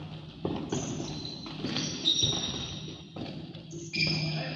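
A futsal ball being kicked and bouncing on a sports-hall floor: three sharp thuds about a second and a half apart, each with hall echo. High squeaks of shoes on the court come between them.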